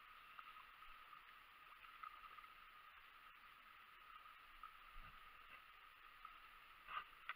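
Near silence: a faint steady hiss, with a soft low thump about five seconds in and a brief faint sound near the end.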